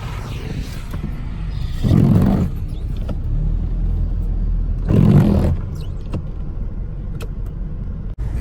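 Steady low rumble of a 4x4 driving a snowy mountain trail, with two louder surges about two and five seconds in.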